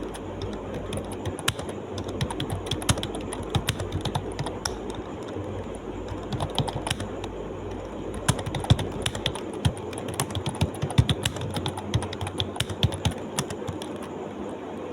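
Fast, continuous typing on a computer keyboard: irregular rapid key clicks with brief pauses, over a steady low background hum.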